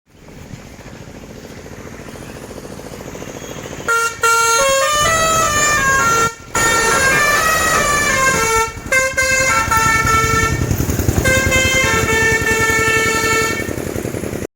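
Indian truck's musical horn playing a tune of quick stepping notes up and down, then longer held notes, over the truck's engine noise, which grows steadily louder for the first four seconds before the horn starts. The sound cuts off suddenly at the end.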